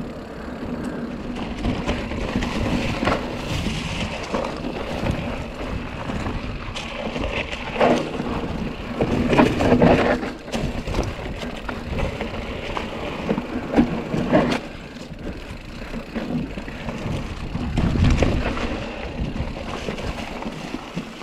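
Mountain bike ridden over a dry trail: tyres crunching on fallen bamboo leaves and dirt, with wind rushing over the microphone and louder knocks several times as the bike rolls over rocks.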